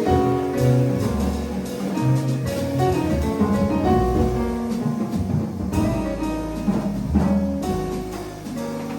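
Jazz piano trio playing: piano over plucked bass notes and drum kit with cymbals.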